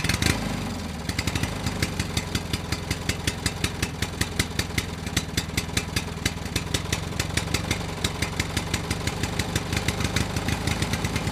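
Small engine running at a steady idle with a fast, even knocking beat, starting abruptly, heard as the engine of a homemade toy crawler bulldozer.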